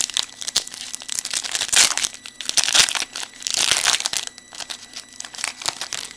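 Wrapper of a trading-card pack being torn open and crinkled by hand, in irregular crackly bursts that are loudest in the middle of the stretch.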